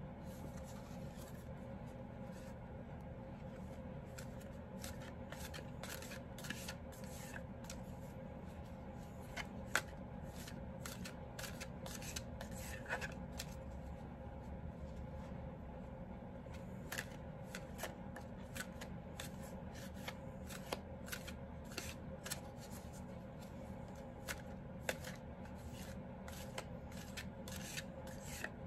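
A deck of oracle cards being shuffled by hand: irregular soft clicks and flicks of cards, at times several a second, over a steady low hum.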